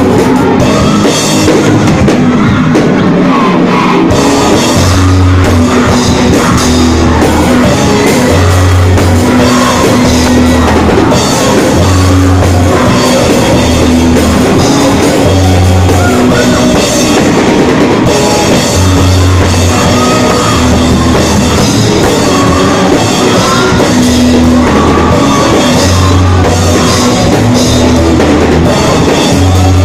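Live rock band playing loud: electric guitar and drum kit over a steady bass line that changes note about once a second.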